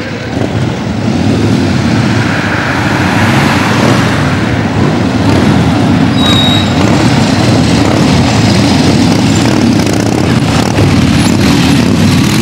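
Motorcycle engines running as a group of motorcycles rides up and past. The sound swells over the first couple of seconds and then stays loud and steady.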